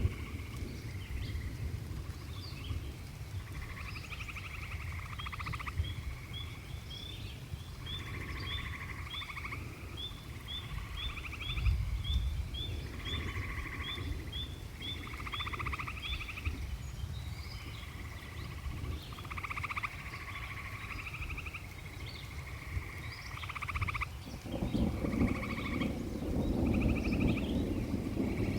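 A chorus of frogs giving repeated pulsed trills, each about a second long, one after another. From about 5 s to 16 s a run of short rising chirps, about two a second, sounds above them. A low steady rumble runs underneath and grows louder near the end.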